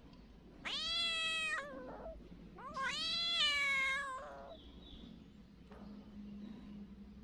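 Mother cat meowing twice in two long calls, the second longer, each dropping in pitch at the end: she is calling for her missing kittens.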